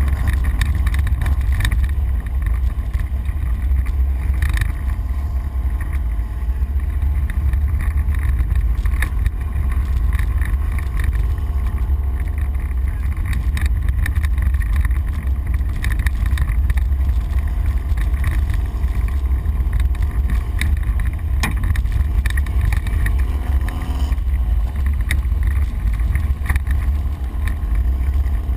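Ford Explorer prerunner driven off-road, heard from inside the cab: a steady heavy rumble of engine, tyres and suspension over rough ground, with constant rattles and knocks.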